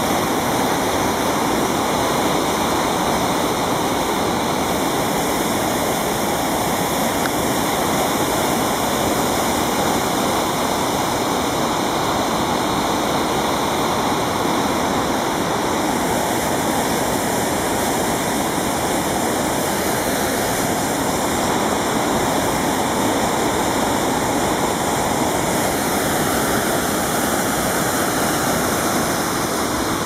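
Small waterfall pouring over a rock ledge into a pool, with the fast-flowing river below it: a steady rush of water.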